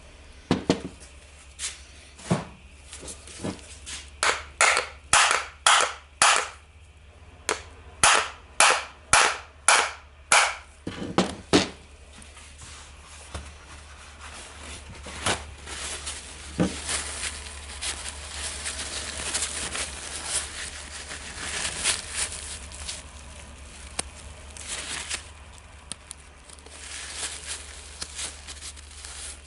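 A run of sharp metal knocks, about a dozen between roughly four and ten seconds in at under a second apart, then quieter scraping and rattling of metal parts being handled.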